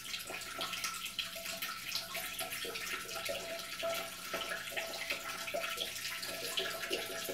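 A steady stream of liquid splashing into water, with many small bubbly plinks: a person urinating into a toilet bowl.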